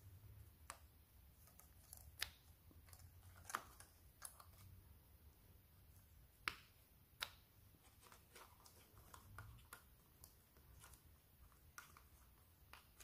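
Scattered light clicks and metallic taps from hands fitting the injectors and fuel pipe connections on a diesel V6 engine. About fifteen, spaced irregularly, with the sharpest about two and six and a half seconds in.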